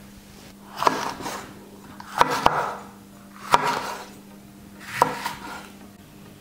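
Kitchen knife slicing a red sweet pepper on a wooden cutting board: four cuts about a second and a half apart, each a short scrape with a sharp tap as the blade meets the board.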